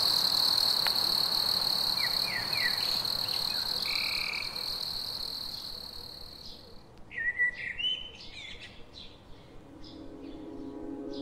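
Night chorus of frogs and insects: a steady high trill with short croaking calls, fading out about two-thirds through. Small birds then chirp in short rising calls, and soft music fades in near the end.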